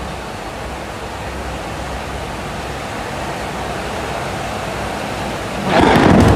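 Heavy rain falling steadily, then a sudden loud clap of thunder near the end.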